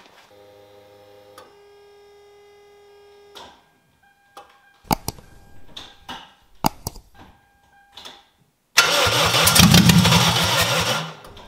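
Toyota 2ZZ-GE 1.8-litre four-cylinder cranking and firing briefly for about two seconds near the end, a short first fire-up to bring the oil pressure up. Before it come a few sharp clicks and short steady tones.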